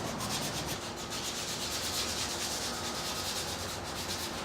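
Walnut being sanded by hand with sandpaper: the paper rubs back and forth over the wood in steady, evenly repeated strokes.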